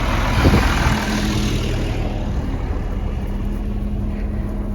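Wind buffeting the microphone, a steady low rumbling noise, with a faint hum that comes and goes.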